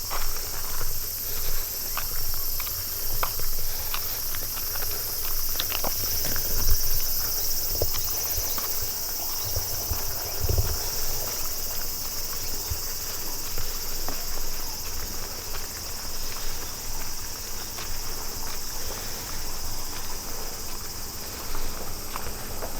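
Insects chirring steadily in a high, continuous band, with footsteps and scattered light clicks from walking along a path, and a few low thuds in the middle.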